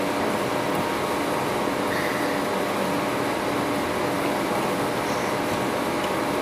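Steady background din of a restaurant dining room, with ceiling air conditioners running.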